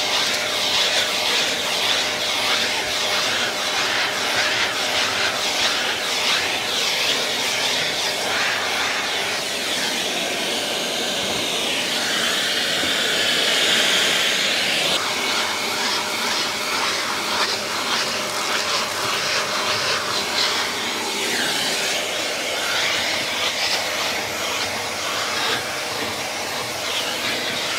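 Vacuum cleaner running steadily, its hose nozzle sucking dirt from a car's floor mats and carpet. The note of the airflow shifts for a few seconds about halfway through as the nozzle moves over the mat.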